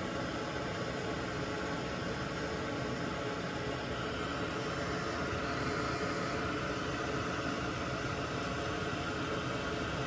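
A small electric fan running steadily: an even hiss with a faint hum underneath.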